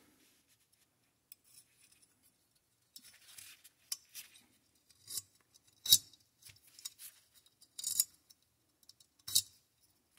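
Small steel AR-15 parts clicking and clinking as they are fitted and worked by hand in the lower receiver: a scattered handful of sharp clicks, the loudest about six seconds in.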